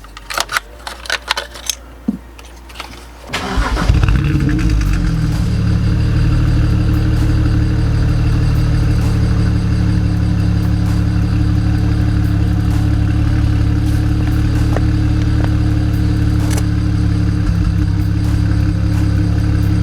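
A few sharp clicks and knocks. Then, about three and a half seconds in, a BMW N54 twin-turbo straight-six cranks briefly, fires and settles into a steady idle. The engine is still misfiring slightly, which the owner puts down to oil that ran into the cylinders from the spark plug wells being burned off.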